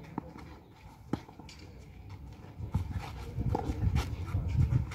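Tennis rally on a clay court: sharp pops of the ball off the racket strings and the court, a few in all, spaced roughly a second apart. A low, uneven rumbling noise takes over in the second half and is louder than the hits.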